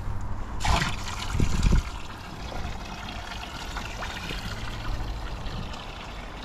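Water pouring steadily from a plastic watering can's spout into a part-filled plastic tank, starting suddenly about half a second in. A few low thuds in the first couple of seconds.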